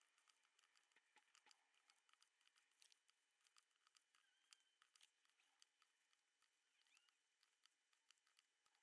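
Near silence, broken by faint scattered ticks and rustles of gloved hands pressing masking tape onto a guitar fretboard and pulling tape from the roll.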